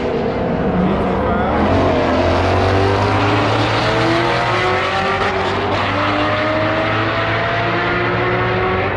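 A Ford Mustang and a Chevrolet Corvette race each other at full throttle in a roll race. Their engines run loud and steady, and the pitch climbs slowly and continuously as they accelerate.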